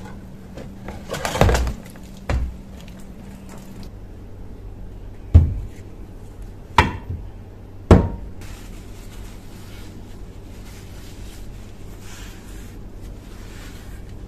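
Rusty steel shovel parts being handled and set down on a wooden tabletop. A short wet rush as a part comes out of the water is followed by four hard knocks of metal on wood; the loudest comes about five seconds in, and the last two ring briefly.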